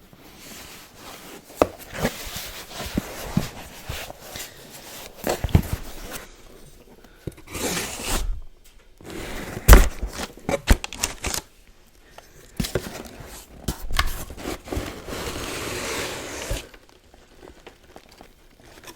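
Makeup packaging being unboxed: wrapping crinkling and tearing, with sharp taps and knocks on the box. There are longer tearing stretches around the middle and again near the end, and one loud knock partway through.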